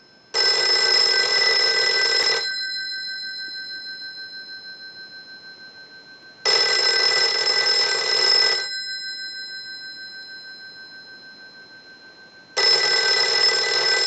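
Western Electric 302 rotary desk telephone's ringer bells ringing three times, each ring about two seconds long and about four seconds apart, the bells' ring dying away slowly between rings. It is a test ring cycle, as for an incoming call, showing the repaired phone rings in.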